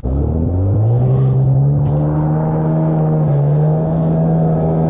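Jet ski engine accelerating: its pitch climbs over about the first second, then holds steady at high throttle, with a brief dip a little past three seconds.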